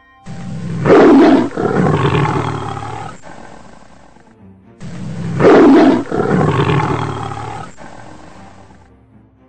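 A large wild animal's roar, heard twice in a row as the same call repeated. Each roar is loudest at its start and trails off over about three seconds.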